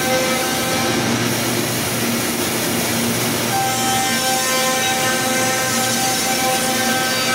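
The four spindles of an ALCA AL-2030-4S CNC router run together, cutting into pine boards. The steady whine sits over the cutting noise and changes pitch about halfway through.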